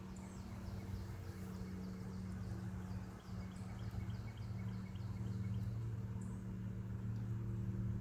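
A steady low motor hum from an unseen machine, with a small bird chirping in quick repeated notes, most of them in the first few seconds.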